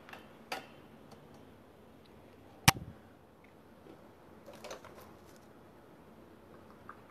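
A few scattered small clicks and knocks of things being handled on a tabletop, with one sharp click about two and a half seconds in and a few light knocks near the middle.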